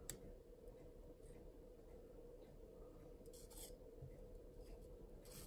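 Near silence: a faint steady hum, one small click at the start, and a few faint scratchy rubs as a soldering iron tip works against a small circuit board.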